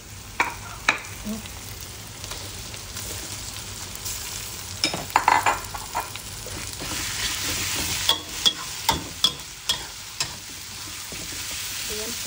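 Pork belly, chilies and garlic sizzling in hot oil in a metal wok, stirred with a metal spatula that scrapes and knocks against the pan. The clanks come in a cluster about five seconds in and again in a run around eight to ten seconds, and the sizzle grows louder in the second half.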